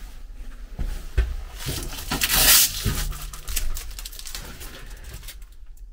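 A clear plastic packet rustling and crinkling as it is picked up and handled, loudest in a burst of about a second near the middle, with a knock about a second in.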